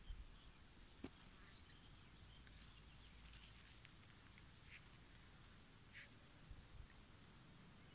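Near silence: a few faint, brief bird chirps, with a low rumble underneath.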